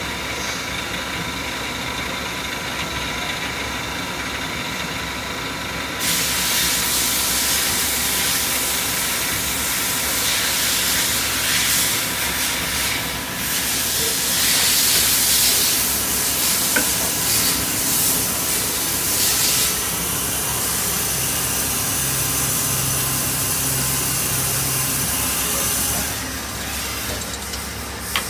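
Miyano BND-51S2 CNC lathe running a machining cycle: a steady machine hum with several whining tones, joined from about six seconds in by a loud hiss of coolant spray that stops about two seconds before the end. A sharp click comes near the end.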